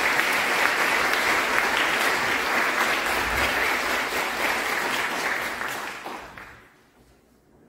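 Audience applauding, the clapping dying away about six seconds in.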